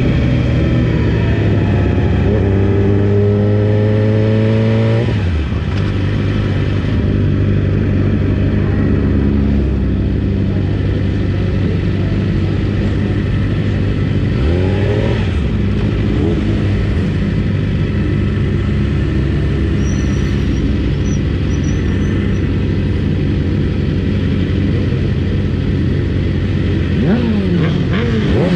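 600cc racing motorcycle engine heard from onboard, running steadily at moderate revs as it rolls along in a pack of race bikes. The revs climb for the first five seconds, then drop sharply, and other bikes' engines rev briefly around the middle and again near the end.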